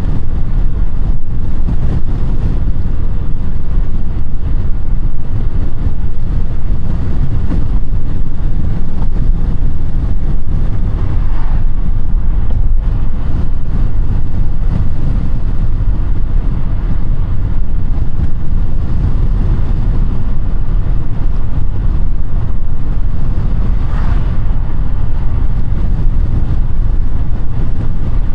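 Audi A5 (8T) driving at a steady pace: a constant low rumble of engine, tyres and wind.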